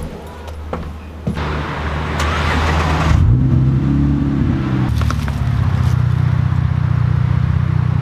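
A car engine starting: about two seconds of cranking, then it catches about three seconds in with a brief rev and settles into a steady idle.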